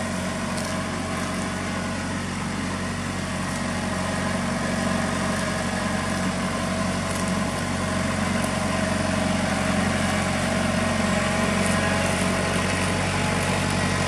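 Kubota compact tractor's diesel engine running steadily as the tractor drives slowly closer, growing gradually louder.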